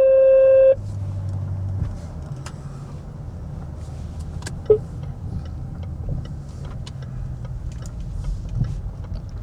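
A loud steady phone tone that cuts off under a second in, then the Range Rover L405's 4.4 V8 twin-turbo diesel engine running low and steady, heard from inside the cabin, with a few small clicks.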